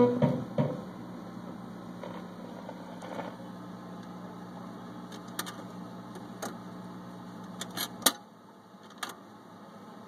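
RCA portable tube record player at the end of a 45: the last notes of the music stop within the first second, leaving the player's steady hum with scattered mechanical clicks as the changer returns the tonearm. About eight seconds in a sharp click comes and the hum cuts off as the player shuts off, with one more click a second later.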